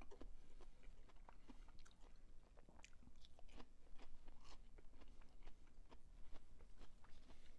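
Close-miked chewing of crunchy fried food, a run of irregular small crunches and wet mouth clicks.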